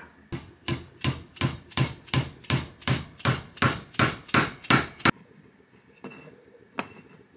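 Hammer tapping the end of a half-inch copper pipe to punch a round disc out of a pink rubber eraser on a wooden block: about fifteen quick, even strikes, roughly three a second, stopping about five seconds in, followed by two lighter knocks.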